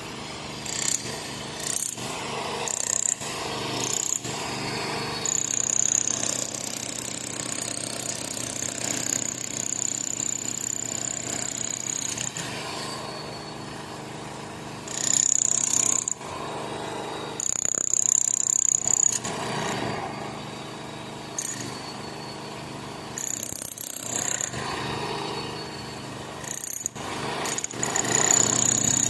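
Train running on the rails, a continuous rattling clatter. A high, steady squeal rises over it several times and then fades again.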